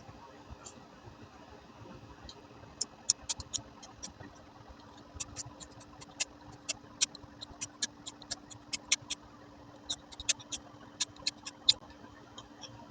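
A ferro rod being struck repeatedly with a steel edge: short, sharp, high scrapes in irregular bunches, some quick runs of several strikes.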